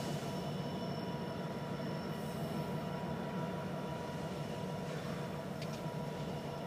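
Freight cars of a departing Union Pacific local rolling by on the rails, a steady rumble with faint steady high tones from the wheels.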